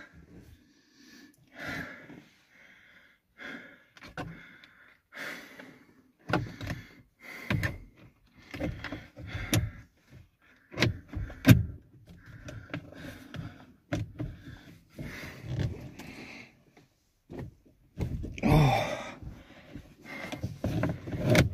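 Irregular knocks, clicks and plastic rattles from a Honda Civic's steering wheel and airbag trim being pried and tugged at by hand and with a screwdriver. The parts are stuck and will not come free. The sharpest knock comes about halfway, and a longer, louder scrape and rattle comes near the end.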